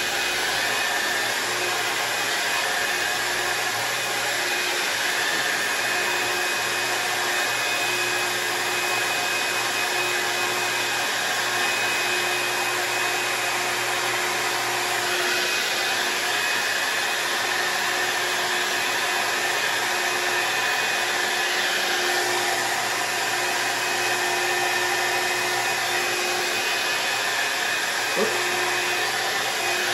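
Hot air brush dryer running steadily, an even rushing blow with a faint constant hum under it, as it dries and curls damp synthetic wig bangs.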